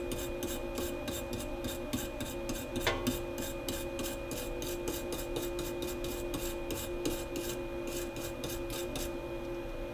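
Rapid, repeated scraping strokes, about four to five a second, cleaning melted plastic stuck to a CNC router bit, stopping about nine seconds in. A steady hum runs underneath.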